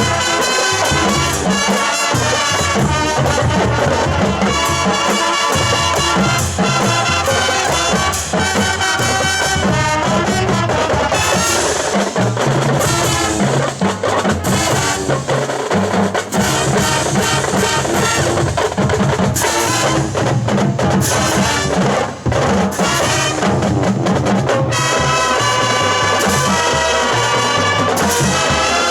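Marching band playing a rock arrangement: trumpets and trombones carry the melody over a steady beat from the drum line.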